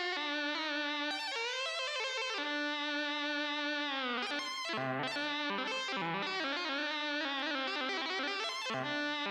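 Music on a distorted electric guitar: long held notes that bend and slide down in pitch, with short breaks between phrases.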